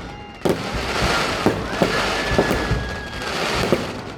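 Fireworks display: sharp bangs about a second apart over a continuous crackling hiss, with a long steady high whistle through the middle.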